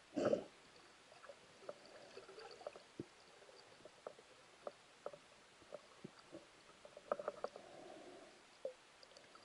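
Underwater sound picked up by a camera while a spearfisher swims with a speargun: faint hiss with scattered small clicks and knocks, a louder muffled thud just after the start and a quick cluster of clicks about seven seconds in.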